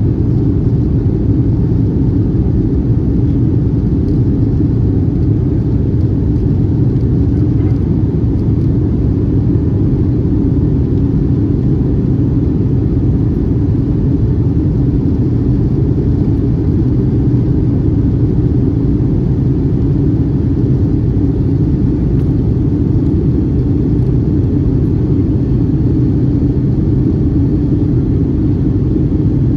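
Steady, loud cabin noise inside a Boeing 757-224 climbing out after takeoff: the low-pitched drone of its Rolls-Royce RB211 turbofans and the air rushing past the fuselage, holding level with no change.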